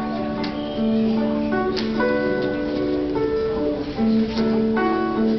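Music: a song with long held melody notes.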